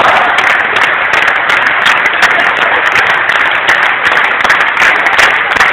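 Large crowd applauding: dense, steady clapping.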